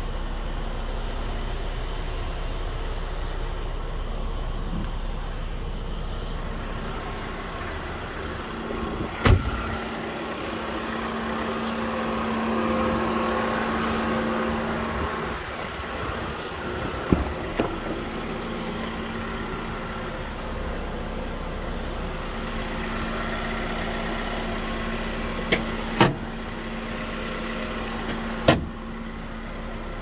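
Volkswagen Crafter van's four-cylinder diesel running steadily at idle, a constant low drone. Several sharp knocks stand out over it: one about nine seconds in, a few quick ones midway, and more near the end.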